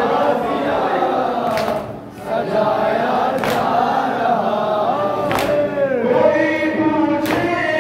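Noha, a Shia mourning lament, sung by a male reciter into a microphone with a group of men and boys chanting along. Four sharp slaps about two seconds apart, the mourners' hand-on-chest matam beating time.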